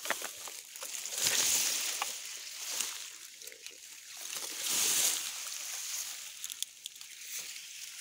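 Rustling of grass and dry stalks brushing close against the camera while someone pushes through tall grass, with two louder swishes, about a second in and again around five seconds, and scattered small crackles of stems.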